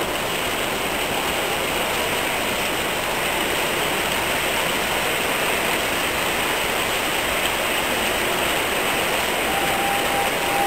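Hornby OO gauge model HST train running along the layout track, heard within the steady hubbub of a busy exhibition hall.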